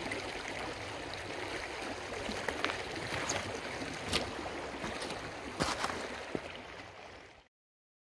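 Shallow creek running over a gravel and rock bed, a steady rush of water with a few faint ticks, fading out near the end.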